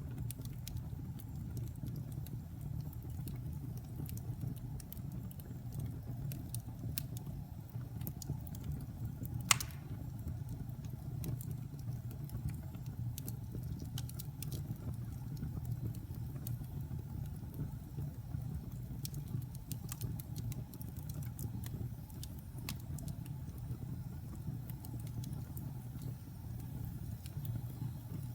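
Wood fire burning in a fireplace: a steady low rumble with scattered crackles, and one loud pop about nine and a half seconds in.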